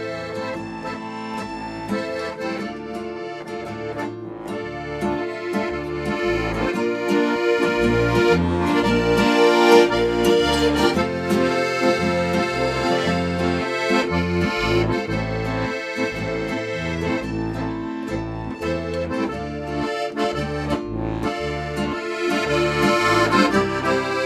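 Instrumental traditional-style music carried by an accordion over a stepping bass line, with no singing.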